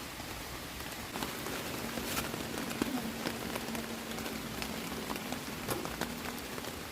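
Rain falling: a steady hiss of rain with many scattered drops ticking on surfaces.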